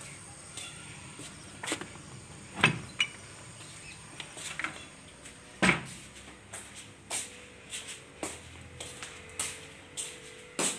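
Footsteps on a hard floor: irregular knocks and clicks about once a second, over a faint steady high-pitched whine. A faint hum comes in about seven seconds in.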